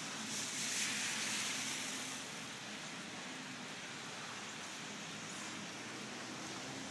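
Steady hiss of heavy rain and running floodwater, swelling louder for a second or two near the start.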